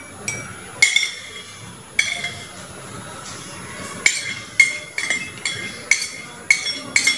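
Metal spoon stirring salt into water, clinking again and again against the side of the vessel: about a dozen irregular clinks, each with a short ring.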